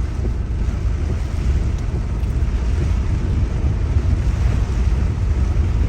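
Steady low rumble of a car driving in heavy rain, heard from inside the cabin: road, tyre and rain noise with no break.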